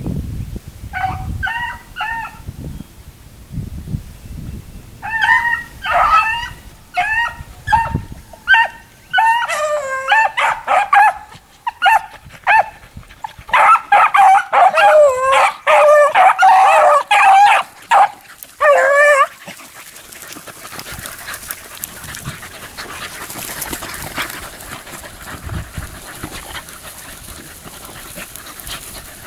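Pack of beagles baying while running a cottontail rabbit's scent. A few spaced calls come first, then several dogs join in a dense overlapping chorus that breaks off about two-thirds of the way through, leaving a steady hiss.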